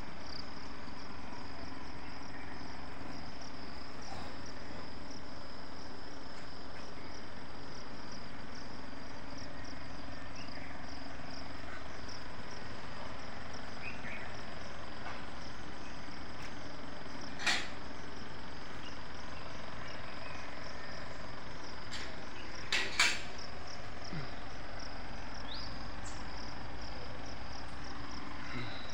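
Insects chirring steadily in a continuous high-pitched band. A few sharp clicks cut through, one just over halfway and a pair about three-quarters of the way through.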